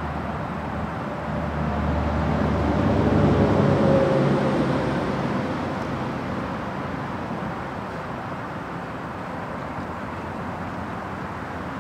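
A motor vehicle passing by outdoors, its engine and tyre noise growing louder to a peak about four seconds in, with a tone that drops slightly in pitch as it goes, then fading into steady background traffic noise.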